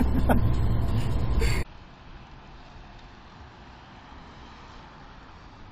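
Car interior noise recorded by a dashcam: a loud low rumble with a few brief voice sounds, cut off abruptly about a second and a half in. After the cut there is only a much quieter, steady hiss of road noise.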